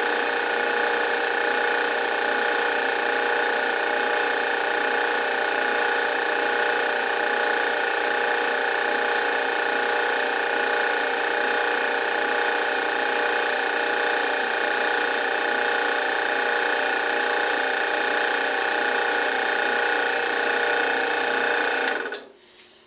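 Drill press running steadily, its bit drilling into a Glock pistol's slide, with a constant whine of several fixed tones over a hiss of cutting noise. It stops abruptly just before the end.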